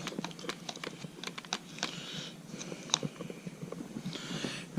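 Irregular light clicks and taps of small screws, tools and plastic parts being handled during an RC truck servo swap, with two brief scraping rustles, about two seconds in and near the end.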